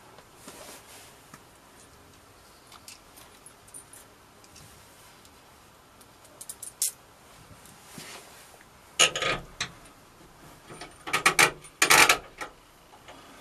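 Metal bolts and washers clinking as they are handled and pushed into the steel mounting brackets on a van's rear door: a few light clicks at first, then two louder bursts of metallic clatter in the second half.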